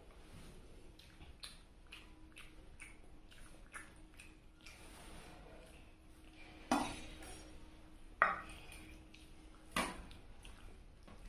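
A meal being eaten close to the microphone: many small clicks and smacks of chewing and handling food, with three sharper clinks of a plate or dish in the second half, about a second and a half apart.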